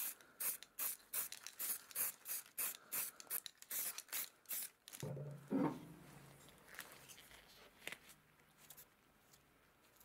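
Aerosol can of heat-resistant spray paint sprayed in short hissing bursts, about three a second, for some five seconds. Then a low thud and faint rustling as a metal grille is handled.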